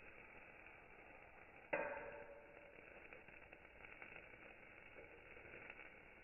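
Faint fizzing and crackling of a burning sparkler, with one sudden sharp sound about two seconds in that fades over about half a second.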